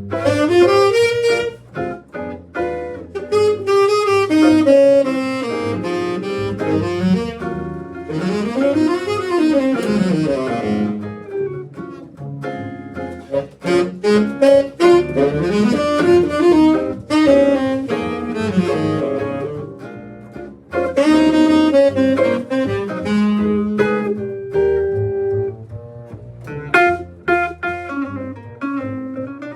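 Band rehearsing a jazz tune with a saxophone taking the lead, playing a melodic solo with fast runs up and down the scale.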